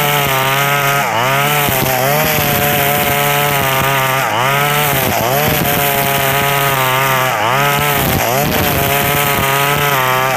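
KNC 4400 brush cutter's engine running loud at high revs while cutting grass, its speed dipping briefly and picking up again about every three seconds. The loud sound comes from a rusted-through exhaust muffler full of small holes.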